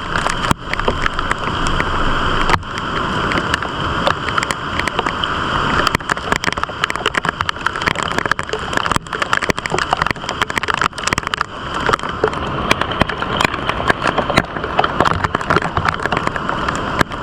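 Heavy rain pattering and crackling, with gusting storm wind rumbling on the microphone.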